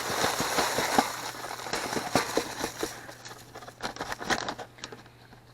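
Dry boxed stuffing mix being poured out, the crumbs and bread cubes pattering and rustling. The pour thins out about three seconds in, leaving a few scattered ticks.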